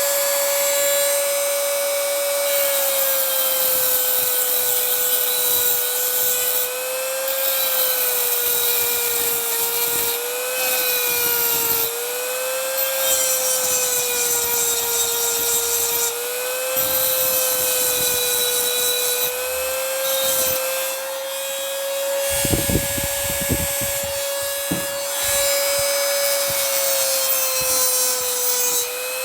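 A cheap Dremel-style rotary tool grinding a steel hacksaw blade into a lock pick, its high motor whine sagging slightly in pitch as it bears on the metal, over a steady hiss of grinding. A few low knocks come about three quarters of the way through.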